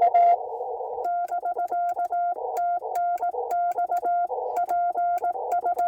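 Morse code (CW) heard through a ham radio receiver: a steady tone keyed in dots and dashes over a band of receiver hiss, with faint clicks as each element starts. A short burst of louder keying opens, then hiss alone, and from about a second in another station's reply keys on steadily, likely sending its park number in a park-to-park contact.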